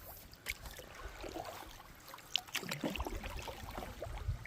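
Canoe paddling: water splashing and dripping from the paddles, with small knocks and clicks. A low rumble comes in about three seconds in.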